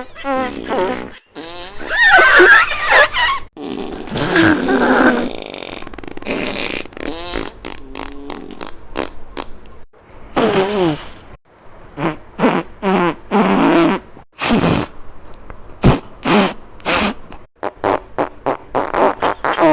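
A string of fart sound effects, one after another: several long, drawn-out farts with a wavering pitch, then a quick run of short blasts.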